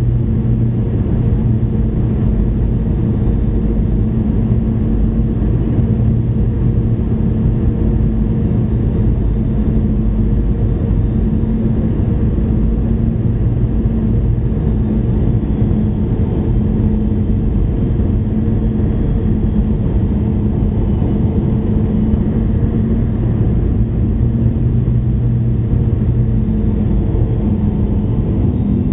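Cabin noise inside a Boeing 717-200 on its approach: a steady drone of the tail-mounted Rolls-Royce BR715 turbofans and rushing air, with a few low hums held steady. The lowest hum fades and the pitch shifts slightly in the last few seconds.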